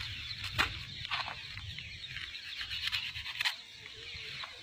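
Birds making many quick high chirps, over a low rumble and a couple of sharp clicks.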